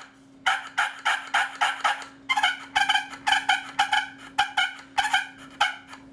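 Homemade barn-oak push-button turkey call worked in a run of short, raspy turkey notes, a few a second with a quicker flurry in the middle, imitating turkey calling. The notes stop just before the end.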